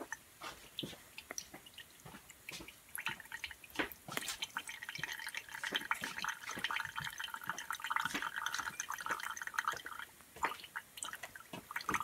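Esbit stainless steel coffee maker heating on an alcohol stove, with irregular dripping and ticking. From about three seconds in it thickens into a dense sputtering sizzle as the water nears the boil. It is dripping because it was not tightened down enough, as the owner finds.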